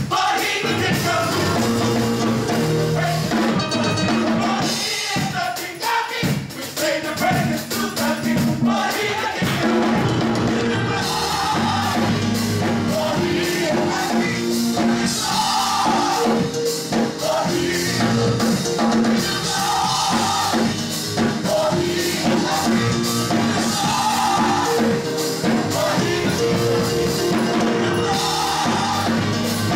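Gospel mass choir singing in full voice, backed by a band with drums keeping a steady beat.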